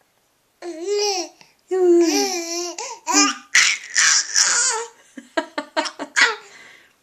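A small child's high-pitched wavering squeals and babbling, then a quick run of short laughing bursts.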